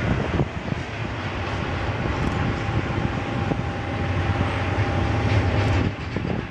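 Several diesel freight locomotives working a double-stack container train, a steady low engine drone with rumbling. A faint steady whine joins about two seconds in and stops shortly before the end.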